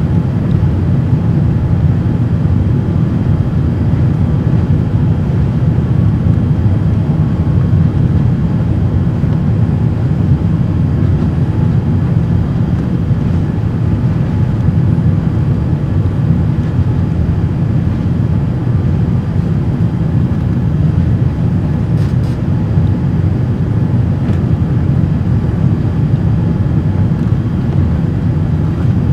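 Steady, loud low rumble inside the cabin of a Boeing 787-8 with General Electric engines: engine and airflow noise heard from a window seat behind the wing, unchanging throughout.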